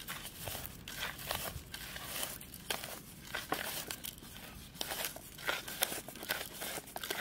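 Dried, fried red chillies crackling and crunching as fingers crush and rub them with salt against a plate, in irregular dry crinkles.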